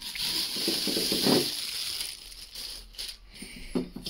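Clear plastic bag crinkling as it is pulled off a camping kettle, loudest in the first two seconds, then softer rustling.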